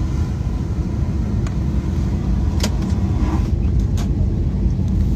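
A car's steady low rumble, with a few faint clicks.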